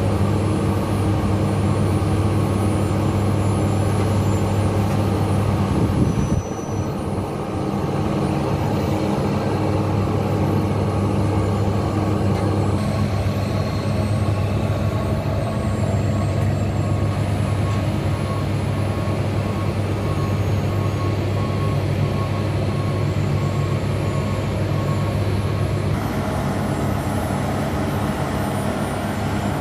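An engine running steadily with a low drone, dipping briefly about six seconds in.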